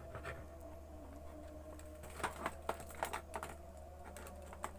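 A run of light, irregular clicks and taps, like typing, from a hand handling a digital multimeter and its test probes on a workbench while setting up a voltage measurement, over a low steady electrical hum. The clicks come in a quick cluster about halfway through, with two more near the end.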